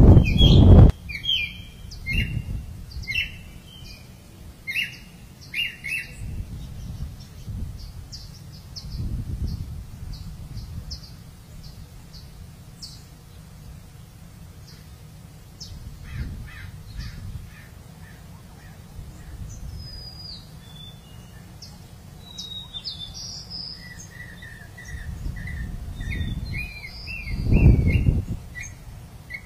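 Wild birds chirping in short repeated calls, busiest in the first few seconds and again near the end, over a low rumble that swells loudest at the very start and near the end.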